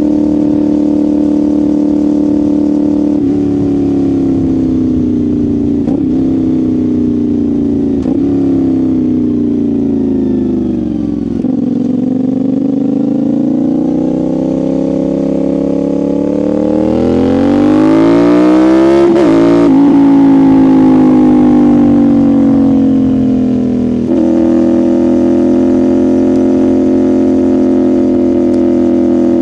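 CFMoto 450SR's parallel-twin engine and exhaust while riding: steady running, then the revs drop through a few gear changes, climb under hard acceleration for the loudest stretch in the middle, and settle back to steady cruising near the end.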